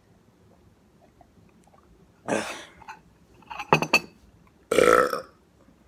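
A person burps loudly near the end. Before it come a short breathy burst about two seconds in and a few quick clinks of a spoon against a bowl.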